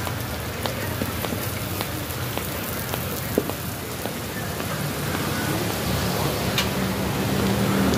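Bánh xèo batter and oil sizzling in a wide wok: a steady crackling hiss with scattered pops.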